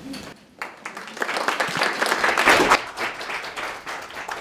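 Audience applauding: the clapping starts about half a second in, swells to its loudest past the middle, then thins out to scattered claps near the end.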